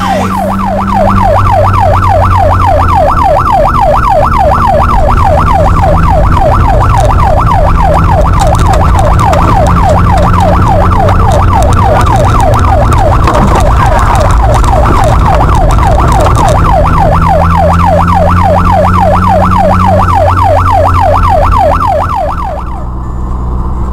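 A siren in rapid yelp mode, its pitch sweeping up and down about four times a second, loud over a car engine running underneath; the siren cuts off near the end.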